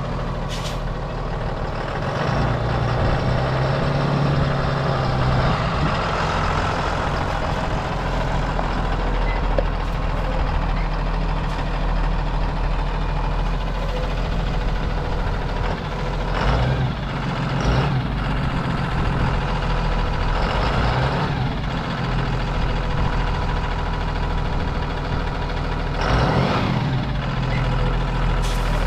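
2011 Blue Bird school bus engine running steadily, with a few brief swells in level.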